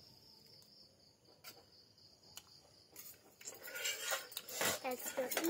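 Crickets chirping steadily in the background, with a couple of light clicks early on, then a clatter of plates and eating utensils being handled from about three seconds in.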